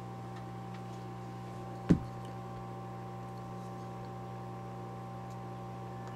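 Steady electrical hum with a few fixed tones, and a single sharp click about two seconds in, with a few faint ticks.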